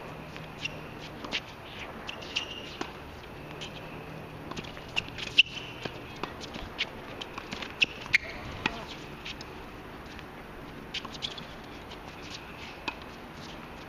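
Tennis rally on a hard court: sharp racket-on-ball hits and ball bounces at irregular intervals, with shuffling footsteps. The loudest hit comes about five and a half seconds in, with two more close together near eight seconds.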